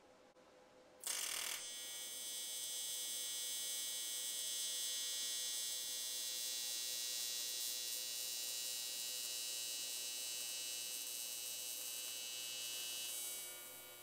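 TIG welding arc on a pit-bike intake manifold: a short harsh hiss as the arc strikes about a second in, then a steady high-pitched buzz that fades out near the end as the arc is brought down.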